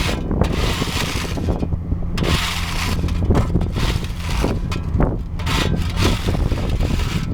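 Asphalt paver's diesel engine running steadily with a constant low hum, mixed with irregular scraping and grinding noises.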